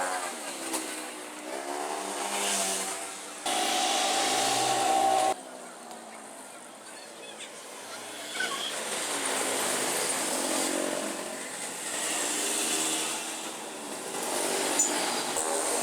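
Vespa Super 150's two-stroke single-cylinder engine revving, its pitch rising and falling again and again. A louder stretch starts and stops suddenly from about three and a half to five seconds in.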